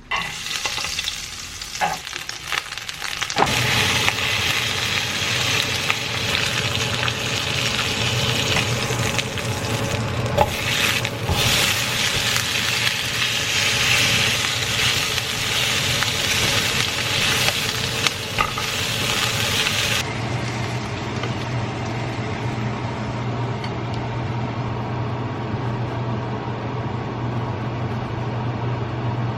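Food sizzling in a hot frying pan, with a steady low hum under it from about three seconds in.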